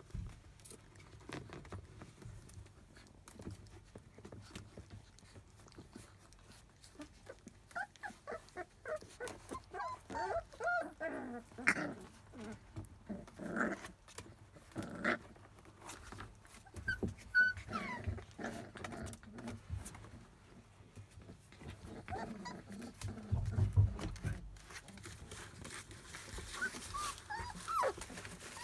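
Four-week-old Labrador Retriever puppies play-biting each other, making many short, squeaky growls that come thick and fast through the middle, with the rustle of the puppies shifting in their bed. A low bump about two-thirds of the way through, and a few more squeaky calls near the end.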